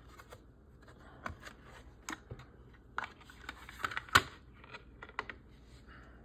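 Small model kit parts clicking and tapping as they are handled and fitted together: a scatter of light, irregular clicks, the sharpest about four seconds in.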